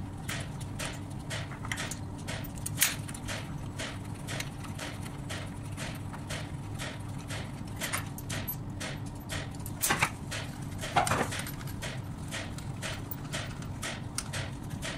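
Steady low hum of running plant machinery with an even mechanical ticking, about three or four clicks a second. A few sharper metal knocks come about three seconds in and twice around ten to eleven seconds in.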